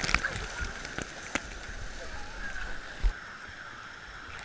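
Splashing water in an indoor pool, heard from a camera at the water surface: a few splashes at the start, then a steady rush of pouring and churning water, with a dull knock about three seconds in.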